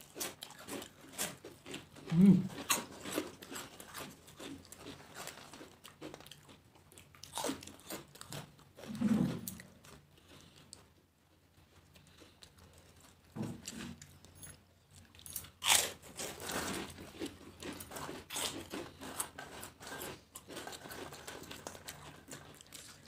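Crisp papad (fried lentil wafer) being bitten and chewed by two people: many irregular crunches, with a quieter stretch about halfway through.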